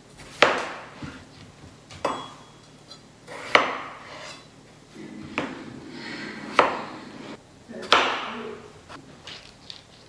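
Chef's knife slicing peeled raw potatoes on a plastic chopping board: six sharp knocks of the blade hitting the board, about one to one and a half seconds apart, with a few fainter cuts near the end.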